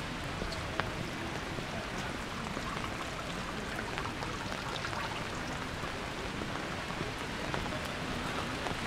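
Steady rain falling, with individual drops ticking sharply on nearby surfaces.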